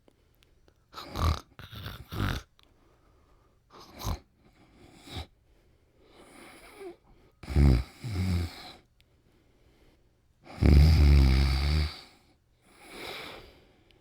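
A man snoring: uneven snores and short snorts with quiet gaps between breaths. The longest and loudest is a low, rattling snore about eleven seconds in.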